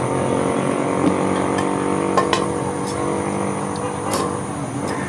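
An engine running steadily at an even pitch, with a few faint clicks.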